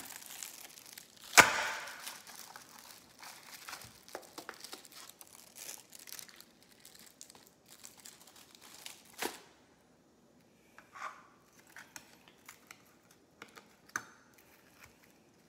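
Plastic film crinkling and tearing as it is peeled off a frozen meal's plastic tray, with a sharp crack about a second and a half in. Scattered knocks and taps follow as the tray is handled and tipped over a plate.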